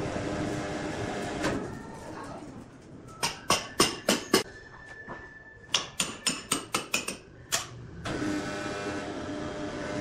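Hammer blows on the end of a large log, most likely driving in a metal fitting: a quick run of about six sharp strikes, a short pause, then about eight more. A steady machinery hum fades out before the hammering and comes back near the end.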